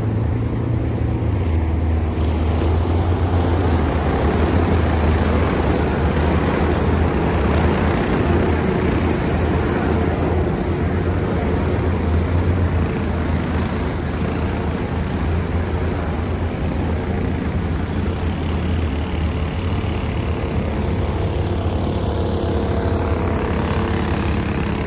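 Several racing kart engines running together around an oval track, a steady drone with no single pass standing out.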